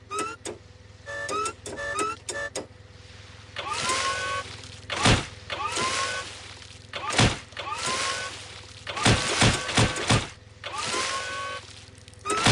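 Cartoon sound effects: a rising, whistle-like sweep followed by a heavy thud, repeated about every two seconds. One stretch near the end has several thuds in quick succession, over a low steady hum.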